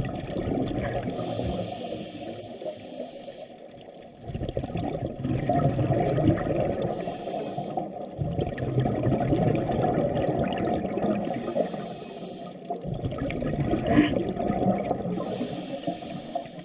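Muffled rushing and sloshing of seawater, swelling and easing in surges a few seconds apart.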